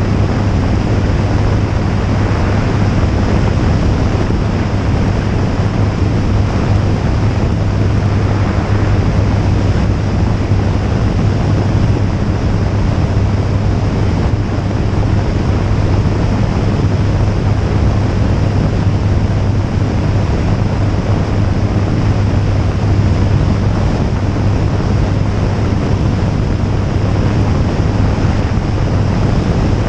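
Jabiru J160 light aircraft in flight: its four-cylinder air-cooled engine and propeller run with a steady low drone, under a heavy rush of wind on the microphone.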